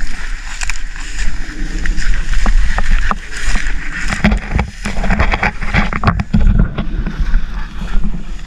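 Footsteps swishing and rustling through tall grass and brush, with many irregular crackles and brushes against the plants and a low steady rumble underneath.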